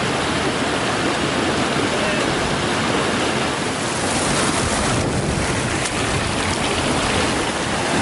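A fast-flowing moorland stream rushing over rocks, mixed with strong wind buffeting the microphone, as one steady, loud rush of noise.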